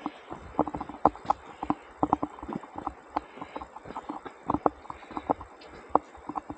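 Irregular hollow wooden knocks and clacks, several a second in uneven clusters, over a faint steady hiss.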